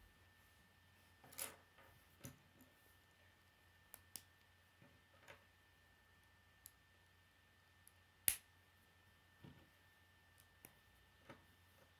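K'nex plastic rods and connectors clicking as they are handled and snapped together by hand: scattered sharp clicks, the loudest about eight seconds in, over a faint steady hum.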